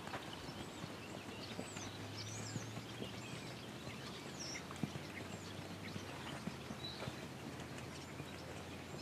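Small birds chirping in the background over a low steady hum, with faint, irregular hoof thuds of a horse gaiting in arena sand.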